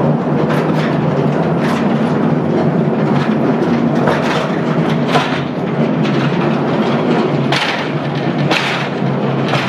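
Mine train running on its rails through a rock tunnel: a steady rumble and hum with irregular sharp clacks of the wheels over the track.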